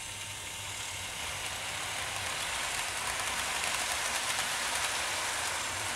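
OO gauge model City class steam locomotive and its coaches running on the track, a steady whirring hiss of motor and wheels on rail that grows slowly louder.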